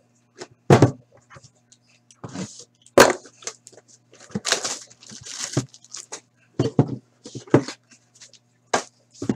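Upper Deck Series 1 hockey card tin being unwrapped and opened by hand: sharp knocks and clunks as the tin is handled, with a stretch of crinkling plastic wrapping a few seconds in.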